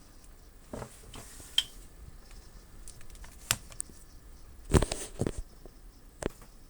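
A handful of separate light taps and clicks. A cluster of several in quick succession about five seconds in is the loudest.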